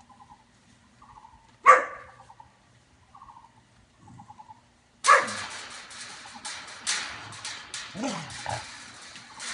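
Formosan Mountain Dog mix puppies playing: one sharp bark about two seconds in, then from about five seconds a run of scuffling and clattering with a short falling cry near the end.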